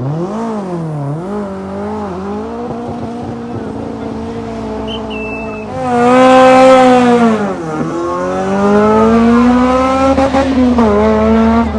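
A performance car's engine revving hard during a burnout or drift, its pitch wavering, then held, then surging louder about six seconds in, dropping sharply a moment later and climbing again, with tyre squeal.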